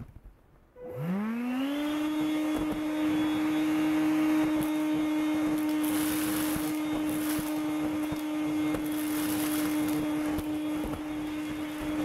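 Makita CL108FD 10.8 V cordless stick vacuum switched on about a second in, its motor whining quickly up to speed and then running at a steady high pitch. Short bursts of hiss about halfway through, as dry cat kibble is sucked up through the floor head.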